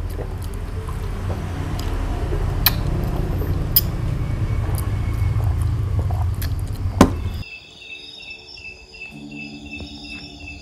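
A steady low hum with a few sharp clicks, which stops suddenly about seven and a half seconds in. Crickets then chirp in a quick, even rhythm, about three chirps a second.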